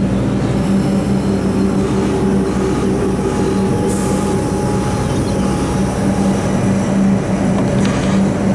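Electric suburban train moving along the platform, with a steady electrical hum over a continuous rumble of wheels on rail. A brief hiss comes about four seconds in.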